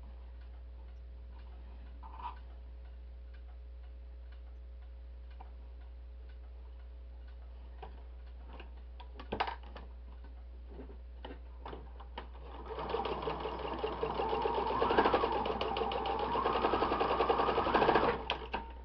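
Electric sewing machine stitching through fabric. It starts about two-thirds of the way in, runs for about five seconds with a fast, even needle rhythm, its speed swelling and easing, then stops. Before it starts there are only a few faint clicks of the fabric being handled and set under the foot.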